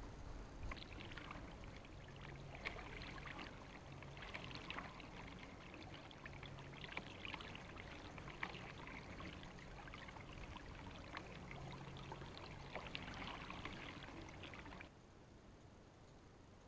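Faint, irregular splashing and trickling of water that stops suddenly near the end.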